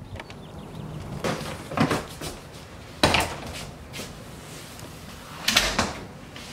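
A house front door and a wheeled suitcase: about four separate knocks and clatters as the door opens, the suitcase is rolled in over the threshold, and the door shuts. The loudest knock, near the end, is the door closing.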